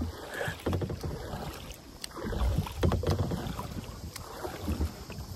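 Kayak paddle strokes splashing and dripping in the water at an uneven pace, with wind buffeting the microphone.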